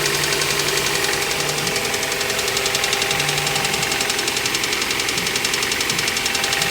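Honda H22A4 four-cylinder engine idling with a rapid, steady knock from the cylinder 4 side, which the owner hears as top-end noise. The cause is a badly damaged number 4 cylinder wall.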